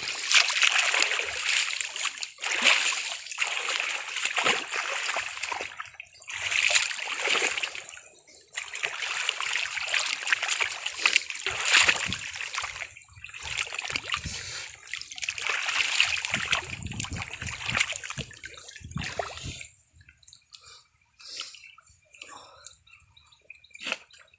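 Water splashing and sloshing in repeated bursts as someone fishes by hand in shallow water. The splashing dies down to faint drips and small scattered sounds about twenty seconds in.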